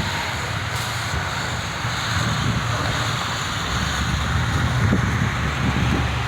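Wind buffeting the microphone in a snowstorm, a steady rushing hiss over a low rumble.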